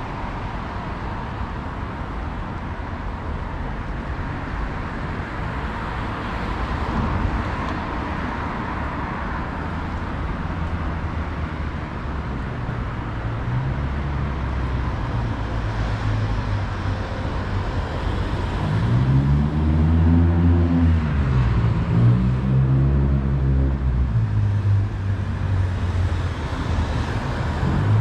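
Steady city street traffic noise. In the second half a nearby vehicle engine grows louder, its pitch rising and falling back twice as it pulls away.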